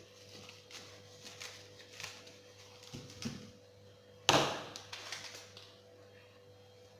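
Soft crinkling and tapping of cling film being stretched and wrapped around carrots, with one sharp knock a little over four seconds in and a faint steady hum underneath.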